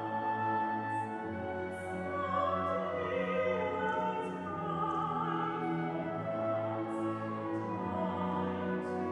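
Mezzo-soprano singing a slow melody of long held notes, accompanied by a full orchestra with strings.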